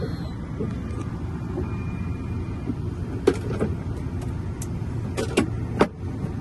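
Steady low rumble of a car running, with a handful of sharp clicks and taps in the second half.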